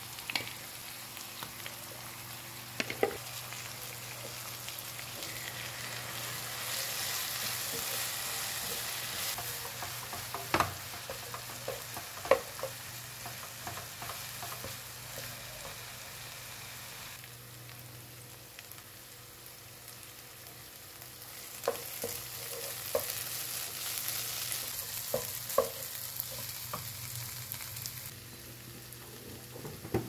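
Sliced onions and green chili paste sizzling in oil in a nonstick pan while a wooden spatula stirs them, knocking against the pan now and then. The sizzle grows louder a few seconds in, eases off around the middle, and swells again in the second half.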